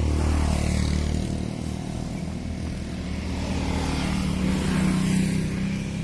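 Kawasaki Z250 parallel-twin motorcycle engine running steadily while being ridden, over a steady hiss of wind and road noise.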